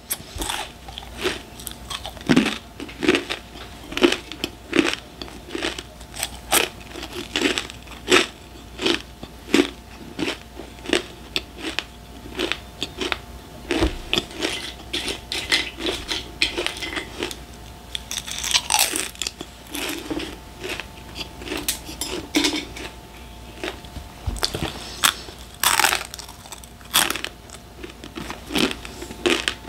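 Close-miked crunching and chewing of crisp snack chips, with sharp bites coming about one or two a second.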